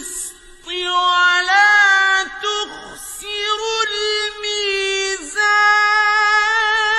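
A man's Quran recitation in Arabic, chanted in a high register: long held notes with wavering ornaments, broken by short pauses about half a second in and near the three-second mark.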